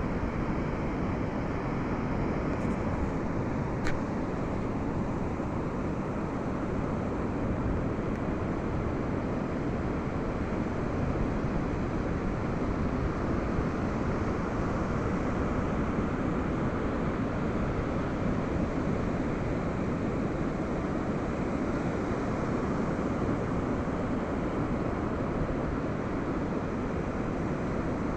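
Ocean surf washing onto a beach in a steady, continuous rush, with a brief click about four seconds in.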